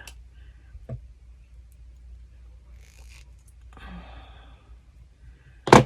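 Quiet handling of jewelry pliers and wire: a faint click about a second in, a breathy exhale around four seconds in, and one sharp metallic click near the end.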